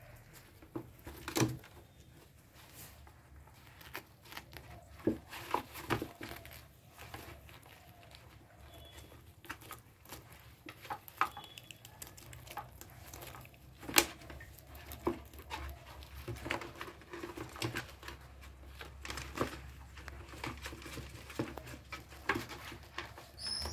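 Rabbits eating leafy vine stems: irregular crunches, rustles and tearing of the leaves, with scattered sharp clicks, one louder click past the middle.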